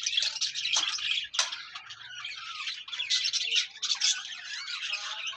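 A flock of small aviary birds chattering with a dense stream of quick, high calls, and one sharp click about a second and a half in.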